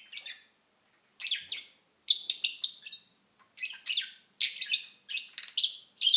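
Budgerigar warbling in short bursts of quick, high chirps with brief gaps between them: the murmuring chatter of a budgie that is content with its surroundings.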